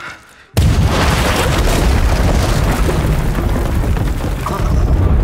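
A tripwire booby-trap charge exploding in an underground dugout about half a second in. The blast carries straight on into a heavy, sustained rumble of the tunnel caving in and earth and rubble coming down.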